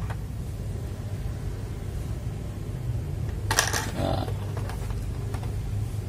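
Plastic keycaps clicking as they are handled and pressed onto the switches of a mechanical keyboard: a few light clicks and one quick cluster of clacks about three and a half seconds in, over a steady low hum.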